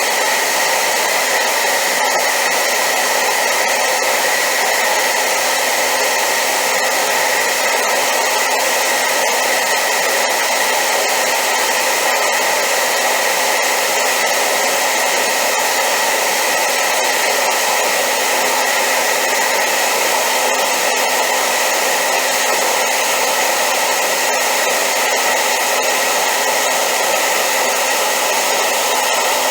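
Hair dryer running steadily on high power: an even, unbroken rushing hiss with a faint steady whine in it.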